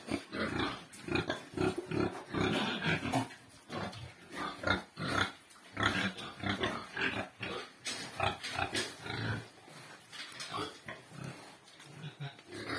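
Pigs grunting during mating as a boar mounts a sow: a steady run of short, repeated grunts that thins out after about nine seconds.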